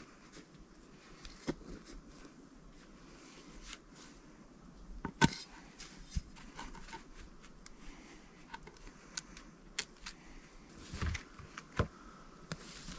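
Sparse knocks and scrapes, the sharpest about five seconds in, from wooden shelter support posts being worked into soft forest ground with a small folding spade.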